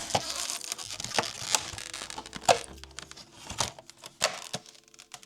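Packaging being handled and torn open: a burst of crinkling and tearing, followed by scattered clicks and taps of handling.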